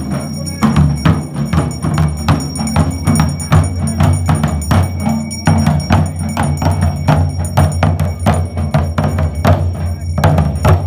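Several large dhol drums beaten with sticks in a fast, dense, steady rhythm, each stroke a sharp hit over a deep, continuous boom.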